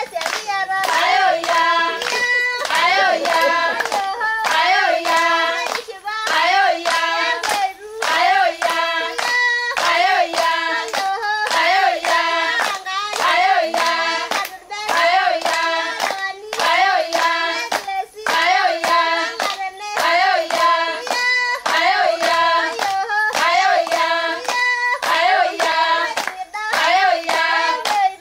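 A group of women, Maasai singers joined by visitors, sing a short phrase over and over in unison, with steady hand-clapping in time.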